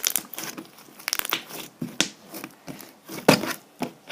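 Hands stretching and squishing homemade slime, giving a run of irregular crackles and pops as air pockets in it burst. The loudest pop comes a little past three seconds in.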